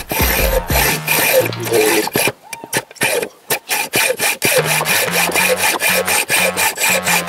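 Hand hacksaw cutting through a steel bolt clamped in a bench vise, in quick, even back-and-forth strokes with a short break near the middle; the bolt is being cut shorter.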